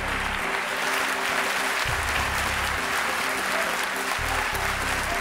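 Audience applauding steadily, with a music track's low bass notes running underneath.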